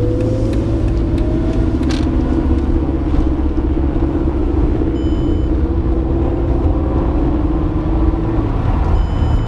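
Car engine and road rumble heard from inside the cabin while driving, with the engine note rising over the first couple of seconds as the car picks up speed.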